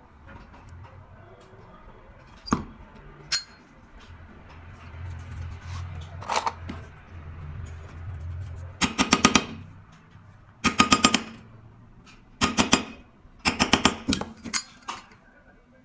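Sharp metallic clicks from work on a Zippo lighter's hinge, which sticks out too far and is being drawn back in: a few single clicks, then four quick bursts of rapid clicks in the second half.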